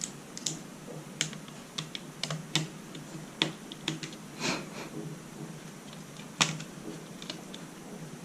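Irregular small clicks and taps of a screwdriver and hands on a plastic laptop case, as tight, stubborn screws are worked loose. One sharper click about six and a half seconds in.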